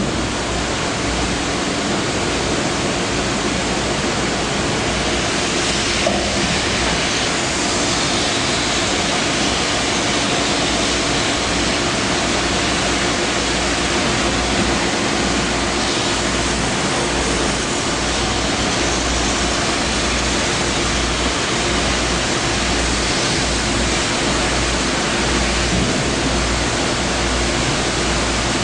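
Plastic-crate washing machine running: a steady rush of spraying water with a steady motor hum underneath.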